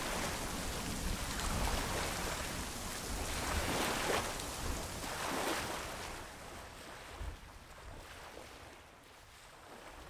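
Choppy waves splashing and washing close to the microphone, in surges every second or two, dying away over the last few seconds.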